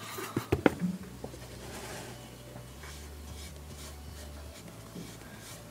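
A few light knocks as the wooden box is handled in the first second. Then a finger rubs PVA glue onto the box's wooden edges, with a low steady hum from about one to four and a half seconds in.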